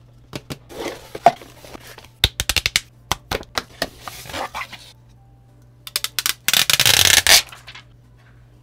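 Hands opening the cardboard box of an LED pool light: taps, clicks and soft scraping of cardboard flaps and insert. Near the end comes the loudest sound, a rough scraping rush as the plastic light is pulled out of its cardboard packaging.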